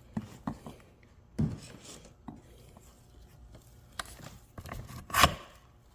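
Metal knocks and clinks as a mobility scooter's armrest post is worked down into its socket on the seat frame: a handful of separate knocks, the loudest near the end.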